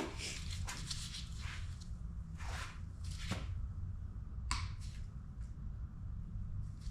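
Several short rustles and clicks of hands handling things at a workbench, spaced a second or so apart, over a steady low hum.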